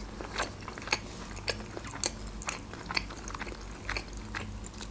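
A person chewing a mouthful of crab salad with lips closed: short mouth clicks and smacks about twice a second.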